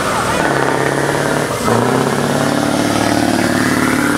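Scania R500 logging truck's V8 diesel engine pulling away under load with a full timber load. There is a brief break about a second and a half in, then it pulls on louder with the pitch slowly rising.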